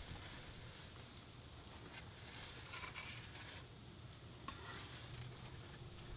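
Faint scratchy scraping as a stainless steel stockpot is turned on a metal table against a marker held at its side, the marker tip rubbing along the steel as it draws a line around the pot. The scraping comes in two stretches, the longer one starting about two seconds in.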